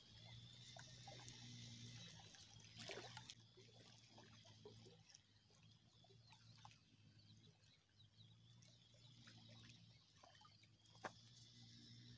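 Near silence: faint outdoor ambience with a low steady hum and a few faint clicks.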